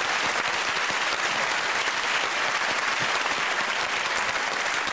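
Studio audience applauding, dense and steady.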